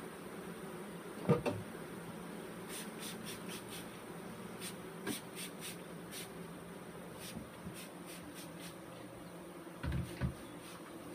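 A honey bee swarm hums steadily while a hand trigger spray bottle squirts over it in several quick runs of short hissing sprays. Dull wooden knocks come twice near the start and twice near the end.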